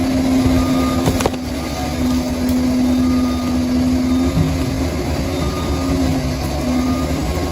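Bulldozer's diesel engine running under load with a low rumble, its held note shifting lower about four seconds in.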